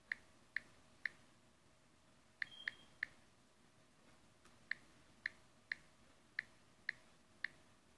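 Samsung Galaxy Note 3's on-screen keyboard clicking as a password is typed: about a dozen short, faint ticks at an uneven pace, with a brief higher tone about two and a half seconds in.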